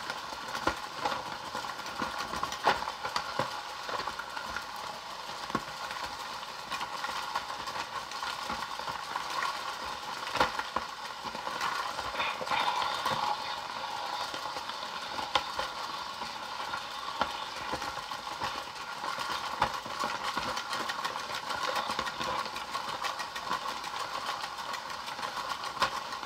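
A plastic toy ice cream cake maker being hand-cranked steadily: a continuous churning rattle with many small irregular clicks from the turning mechanism.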